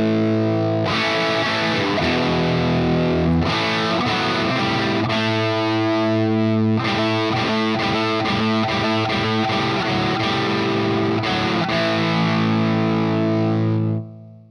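Distorted electric guitar played through a 1974 Marshall JMP Super Bass valve amplifier, heard through a reactive load and a 4x12 cabinet impulse response. Held chords ring out, with a stretch of quicker picked notes in the middle, and the guitar dies away shortly before the end.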